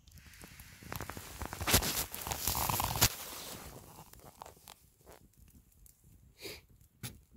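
Small twig fire in a folding bushbox stove, crackling and popping. The crackling is densest and loudest from about one to three seconds in, then thins to scattered pops.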